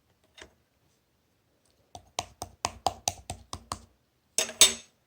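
Slime being played with by hand: a quick run of about nine sharp clicks and pops, about five a second, then a louder, longer crackle near the end.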